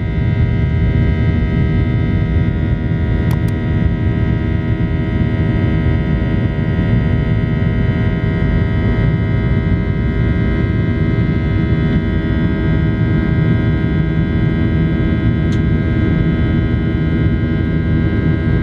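Cabin noise of a Boeing 737, its CFM56 jet engines running steadily: a dense rushing roar with a set of steady tones over it. Two faint clicks come about three seconds in and one more near the end.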